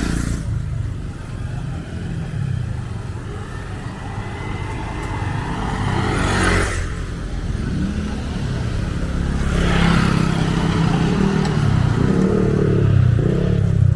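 Road traffic passing on a bridge: a steady low engine rumble, with two vehicles going by close, one about six seconds in and another about ten seconds in.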